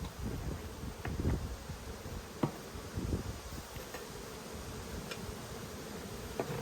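Honeybees buzzing around an opened hive, a steady hum, with a few light knocks.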